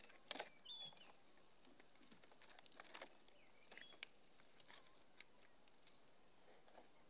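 Near silence, with faint scattered clicks and knocks, the loudest just after the start, and a few short high chirps.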